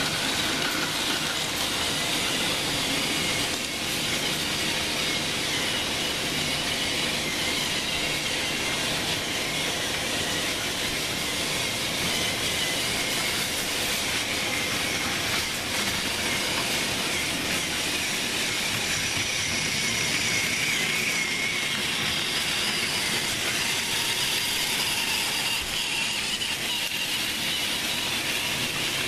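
Several battery-powered Plarail toy trains running on plastic track, giving a steady mechanical whir of small motors, gears and wheels.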